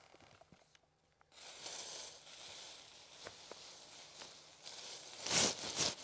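Faint rustling and scratching with a few small clicks, then a louder brief rustle about five seconds in.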